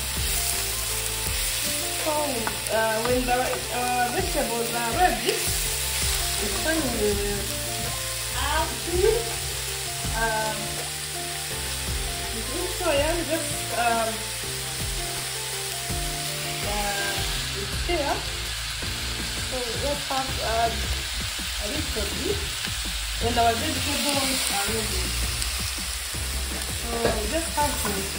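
Beef tripe with tomatoes, carrots and onions sizzling in a steel wok, with a spatula stirring the food and scraping the pan in short, irregular strokes.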